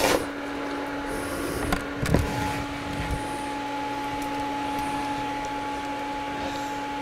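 Stick-welding arc on an overdriven 6010 rod at 215 amps crackles and cuts off abruptly as the arc is broken. A steady electrical hum remains, with a couple of light knocks about two seconds in.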